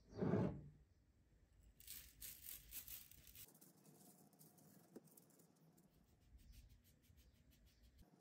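A short knock at the start, then shredded coconut pattering and hissing as it is poured onto an aluminium baking tray for about a second and a half, followed by faint scraping and ticking as a silicone spatula spreads it over the tray.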